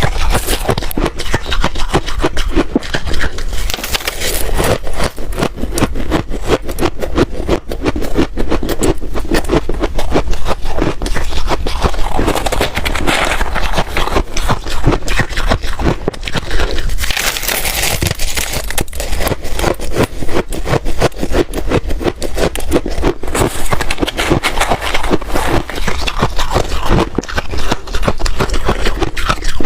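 Ice being bitten and chewed close to the microphone: a dense, continuous run of loud crunching and cracking.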